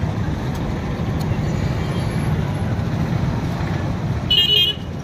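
Steady street traffic rumble, with one short, high-pitched vehicle horn toot near the end.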